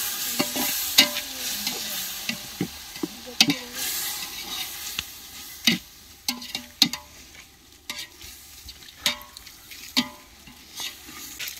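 A spoon stirring and scraping through a pot of frying masala of onion, tomato, green chilli and freshly added yogurt, with sharp scrapes against the pot every second or two. The sizzle of the hot oil is strongest in the first few seconds and then dies down.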